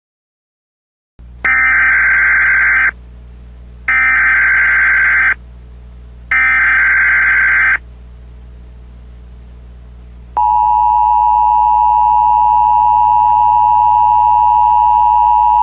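Emergency Alert System SAME header: three identical bursts of warbling digital data tones, each about a second and a half long and about a second apart. About two and a half seconds later the steady two-tone EAS attention signal (853 and 960 Hz) starts and holds, announcing a new alert.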